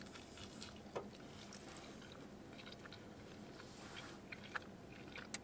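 A man biting into and chewing a slice of pizza: faint, scattered mouth clicks and small wet smacks, with a sharper click near the end.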